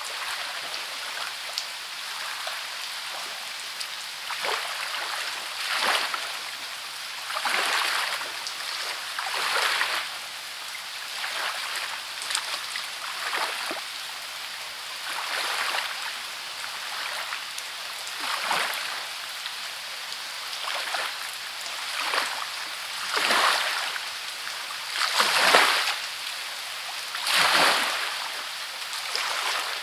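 Steady hiss of rain with short swells of rushing water every couple of seconds, the biggest swell near the end.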